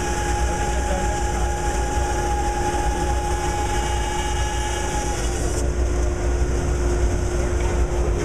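Steady machine hum over a low rumble, with a constant tone and a second, higher tone that dies away about five seconds in.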